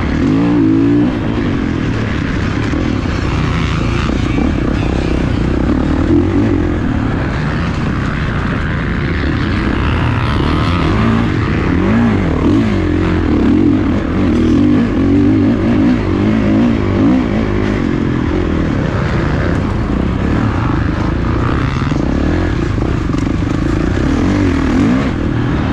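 Dirt bike engine revving up and down under hard riding, its pitch climbing and dropping again and again as the throttle is opened and rolled off.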